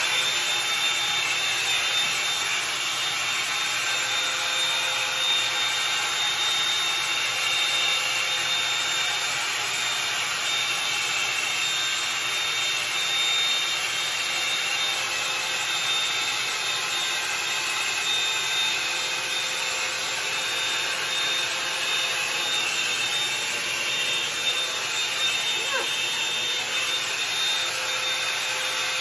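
Bed Head Blow Out Freak hot-air drying brush running steadily on its high setting: a rush of blown air with a thin high motor whine, as the bristles drag through the hair.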